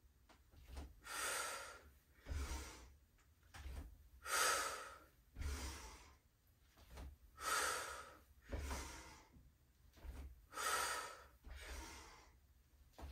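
A woman breathing audibly in and out through repeated lateral squats: about a dozen short breaths, roughly one a second, the loudest about four and a half seconds in.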